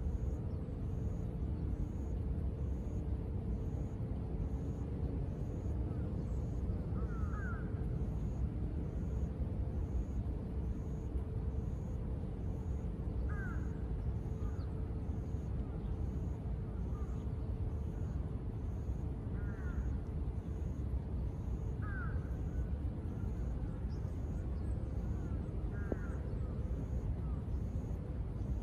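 Steady low rumble of ambient city noise, with crows cawing faintly about five times at spaced intervals.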